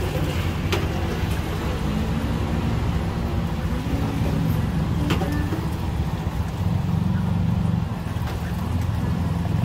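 Road traffic: motor vehicle engines running with a steady low rumble, with a few sharp clicks.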